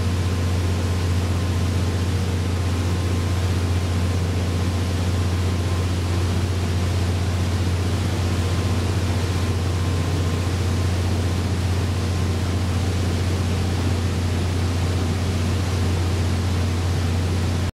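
Steady low boat-engine drone under an even hiss of wind and water, cutting off suddenly near the end.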